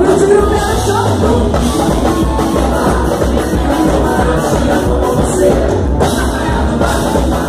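Live sertanejo band playing loud and steady, a male and a female singer singing over drums, electric guitar, accordion and keyboard.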